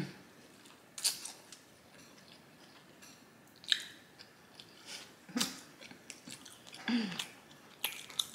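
A person chewing food close to the microphone, with short wet lip smacks every second or two.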